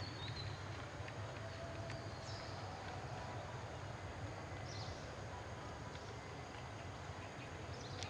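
Outdoor forest ambience: a steady low rumble with a few short, high bird chirps and scattered faint clicks.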